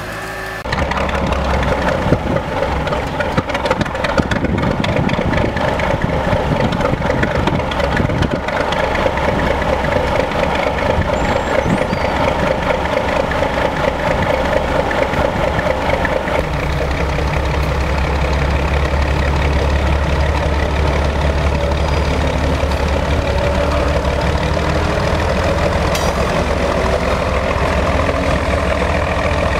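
Small diesel switcher locomotive's engine running steadily as it pulls a flatcar along the track. About halfway through, the engine note gets heavier and deeper.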